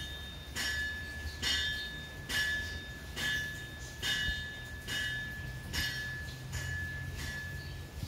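A bell-like ring struck over and over at an even pace, a little faster than once a second, over a low steady hum.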